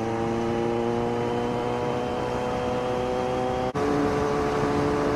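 Kawasaki Z900's inline-four engine running steadily on the road, its note climbing slowly. It breaks off abruptly about three and a half seconds in and then carries on at a lower pitch.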